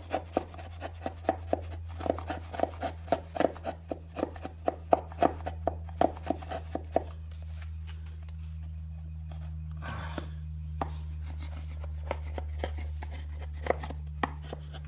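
Hand chisel pushed and scraped into a wooden door jamb in quick short strokes, about three or four a second, that stop about seven seconds in; a few scattered scrapes and taps follow. A steady low hum runs underneath.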